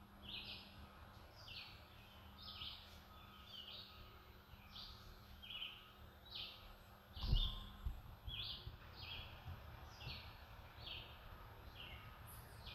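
A bird calling over and over: short high calls, each dropping in pitch, repeated a little faster than once a second. A low thump about seven seconds in.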